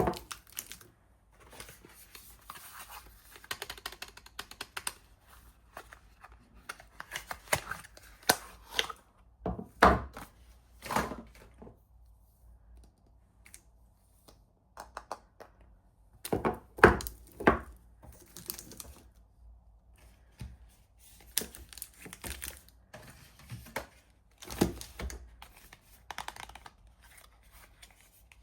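Soap packaging being opened by hand: wrapper tearing and crinkling in irregular spells, with a few soft knocks, about three times, as the bar or box is handled.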